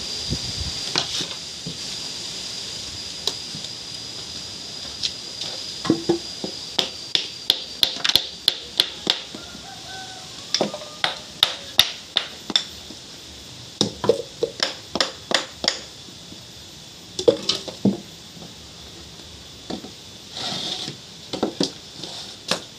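A series of sharp taps or knocks, some in quick runs of about two a second, over a steady high thin tone that fades out about a third of the way in.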